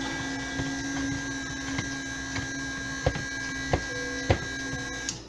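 Handheld stick blender motor running with a steady hum as it mixes a pitcher of coloured cold process soap batter, switching off just before the end. Three sharp knocks come in the second half.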